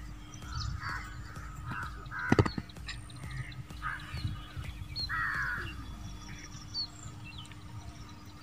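Crows cawing repeatedly in the background, a short call every second or so, with a single loud thud about two and a half seconds in.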